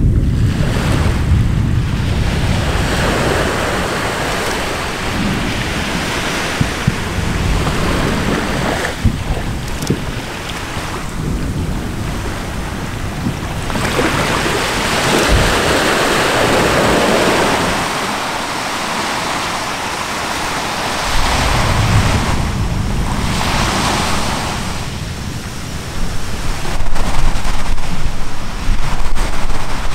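Steady surf and wind noise on the microphone, swelling and fading, across the water from the erupting Anak Krakatau volcano. In the last few seconds a louder, deep rumble with sharp jolts comes in as a new explosion bursts from the crater.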